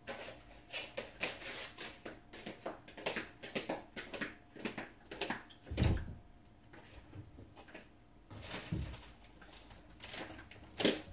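Objects being handled in a small room: a run of small clicks and knocks, with a heavier thump about six seconds in.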